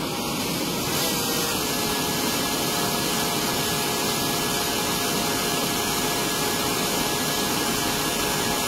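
Bosch cordless drill running steadily, spinning a brass case in an annealing cup, over the hiss of a brazing torch flame as the case neck is annealed.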